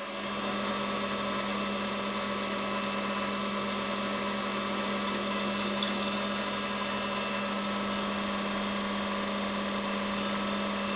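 Metal lathe running with a steady hum while a chamfering tool cuts a chamfer on the end of a turned aluminium bar.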